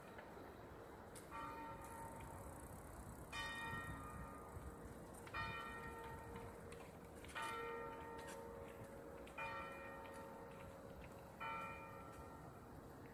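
Church bell tolling, six strokes about two seconds apart, each ringing on and fading before the next.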